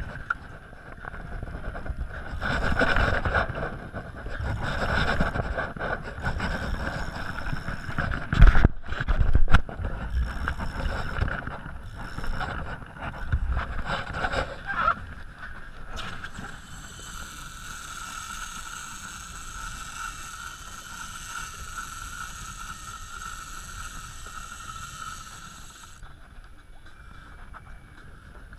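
Wind buffeting the microphone and water slapping a small boat's hull, with a few heavy knocks of handling in the first half. From about halfway through, a steady high buzz runs for about ten seconds and then stops: a spinning reel's drag paying out line to a hooked fish.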